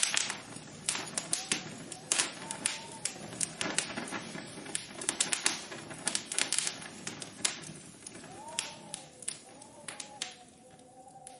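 Dense irregular tapping and clicking, fading toward the end, with a faint pitched sound that rises and falls a few times.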